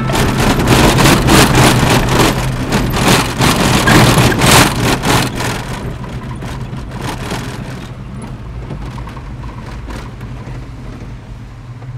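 Car engine running, heard from inside the cabin, with the body and tyres knocking and crackling over a rough dirt road. The knocking is loud and dense for the first half, then eases after about six seconds, leaving a steadier, quieter hum.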